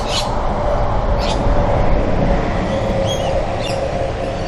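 Outdoor background noise: a steady low rumble with a faint steady hum, and a few short bird chirps.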